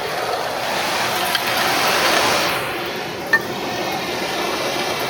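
Side channel blower industrial vacuum running, sucking up dry foundry debris, with metal chips and slag clinking as they are drawn through the pickup. A couple of sharp clicks stand out, the loudest a little past three seconds in.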